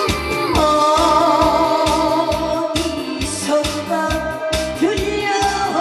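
A woman singing live into a microphone, holding long notes with vibrato, over a karaoke-style backing track with a steady drum beat.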